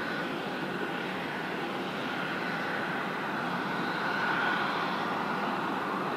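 Airliner engines running: a steady rush with a high whine that fades and swells again about four seconds in.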